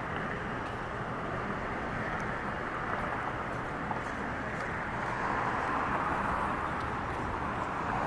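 Steady outdoor background noise, an even rushing hiss with no distinct calls or voices, getting a little louder about five seconds in.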